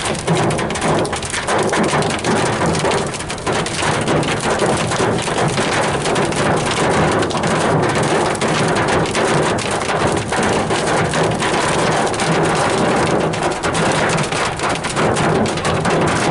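Heavy rain hitting a car during a monsoon thunderstorm: a dense, steady patter of many sharp drop impacts.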